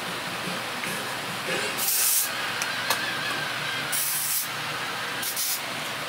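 Short spritzes of hair spray, three main bursts of hiss a second or two apart with a fainter one before them.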